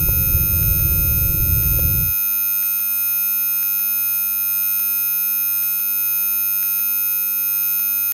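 Electronic drone of many steady, high sine tones sounding together over a low rumbling noise; the rumble cuts off suddenly about two seconds in and the tones carry on alone.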